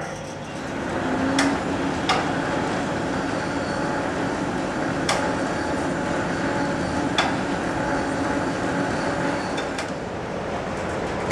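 A ship's mooring winches and deck machinery running steadily as the lines are worked, with a few sharp, irregular metallic clanks and a louder clank near the end.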